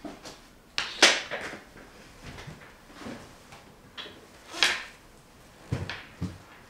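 Scattered handling sounds at an office desk as a person settles in: a sharp clatter about a second in, a rustle later, and two low thumps near the end.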